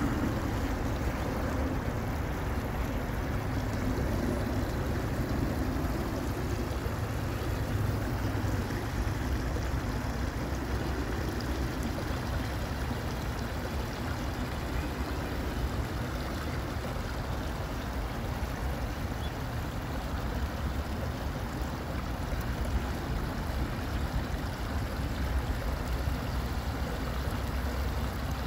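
A small stream trickling and gurgling steadily over rocks into a pond, with a steady low rumble beneath it.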